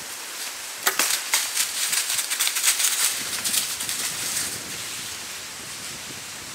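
A sharp snap about a second in, then about three and a half seconds of rapid crunching and rustling in dry leaf litter, as of a whitetail deer bounding away under the stand.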